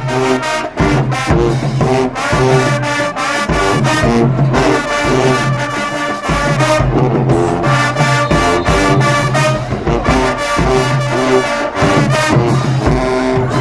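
High school marching band playing a stand tune: the brass sounds a riff that repeats over and over, with regular drum hits under it.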